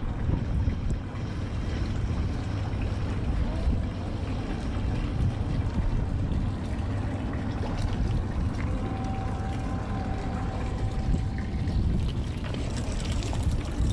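Wind buffeting the microphone in a steady low rumble, with a faint held tone for a couple of seconds midway and a few light ticks near the end.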